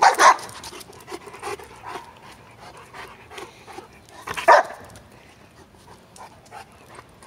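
Cane Corso dogs: a female gives two loud, short warning barks at a male, about four seconds apart, with panting in between. She is warning off the male, who is after her while she is in heat.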